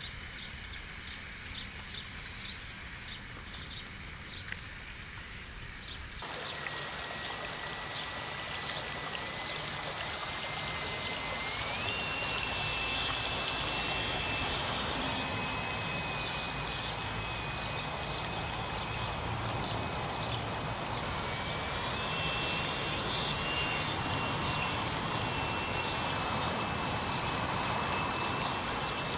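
Thin, steady high whine of the small 3D-printed RC boat's electric motor, stepping up in pitch about twelve seconds in, dipping briefly near twenty seconds and rising again, over a steady outdoor hiss. Before it, for the first six seconds, there is quieter outdoor ambience with faint, evenly repeated chirps.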